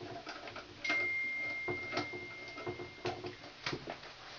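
Light clicks and knocks, roughly once a second, from hand work on a light-fixture terminal screw. About a second in, a steady high-pitched tone starts and holds for about two seconds.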